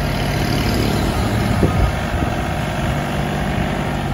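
John Deere 3036E compact tractor's diesel engine running steadily at low speed as the tractor creeps along the truck deck, with a brief clunk a little under two seconds in.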